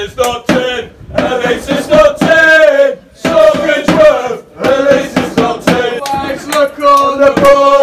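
A small group of football supporters chanting a song together in phrases, with hand claps.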